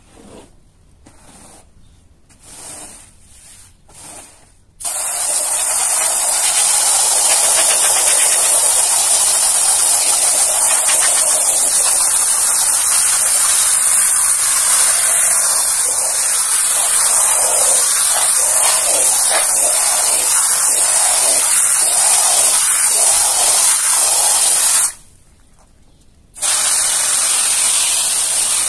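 Foam sprayer hissing steadily as it lays soapy foam over a wet carpet. The spray starts suddenly about five seconds in, cuts out for about a second and a half near the end, then starts again.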